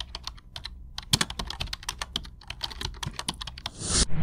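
Rapid, irregular keyboard typing clicks, a sound effect in an animated text intro, ending with a short burst of hiss near the end.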